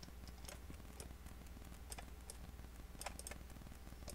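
Faint, scattered clicks of a computer mouse, with a quick cluster of clicks about three seconds in.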